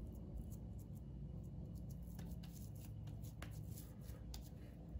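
Hands squeezing and patting a ball of raw ground beef, giving soft, irregular wet squishes and slaps over a low steady hum.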